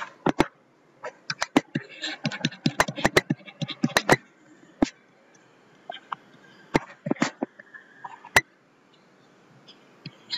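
Pen stylus tapping and scratching on a tablet screen while drawing lines: a string of sharp clicks, dense in the first four seconds and sparser after.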